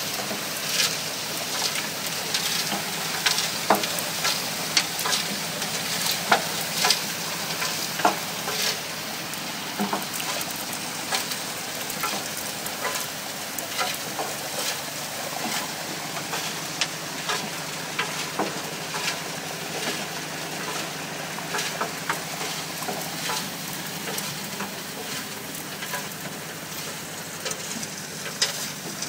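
Water and gravel washing down a sluice box over its riffles: a steady rushing wash with many sharp clicks and splashes scattered through it.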